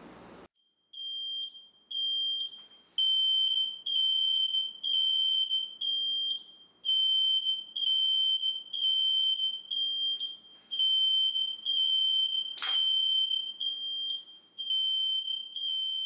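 Ceiling smoke alarm sounding its loud, high-pitched beep over and over, in groups broken by a short pause about every four seconds, set off by canned test smoke: its smoke sensor works. The aerosol spray hiss stops about half a second in, and a sharp click is heard about twelve and a half seconds in.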